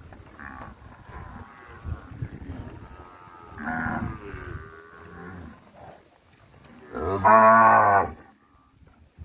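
Zebu cattle mooing, several calls one after another. The loudest is a long, low moo of about a second near the end.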